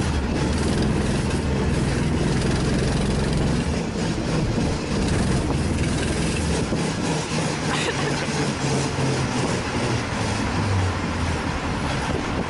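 Small go-kart engine powering a homemade hamburger-shaped car as it rolls slowly. It makes a steady low drone that eases off a few seconds in.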